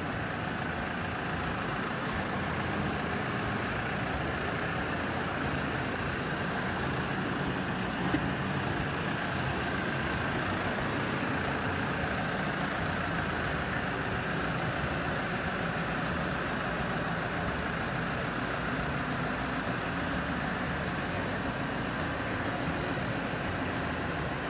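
Farm tractor's diesel engine running steadily at idle. A small knock about eight seconds in.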